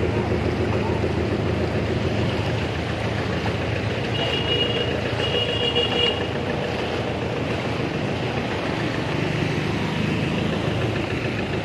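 Street traffic with vehicle engines running steadily. A little over four seconds in come two high electronic beeps, each just under a second long.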